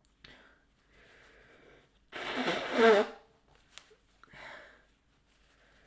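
A woman sneezing: breathy inhaling builds up to one loud, voiced sneeze about two seconds in, followed by a quieter breath.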